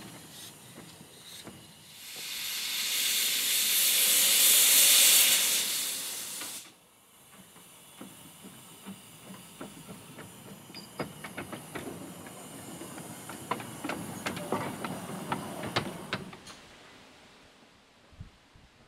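Narrow-gauge steam locomotive letting off a loud hiss of steam for about five seconds, which swells and then cuts off sharply. Then a softer hiss with scattered light clicks and clanks for several seconds, dying away near the end.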